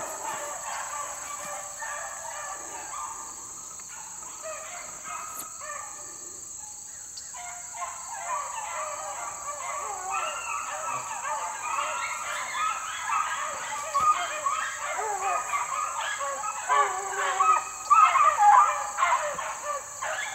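A pack of beagles baying on a rabbit's track, many voices calling over one another and growing louder toward the end. A steady high insect drone runs underneath.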